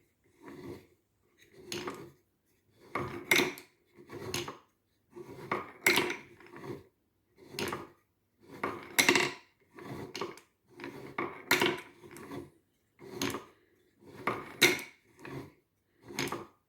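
Wooden toys clattering and knocking in short, separate rattling bursts, about one a second.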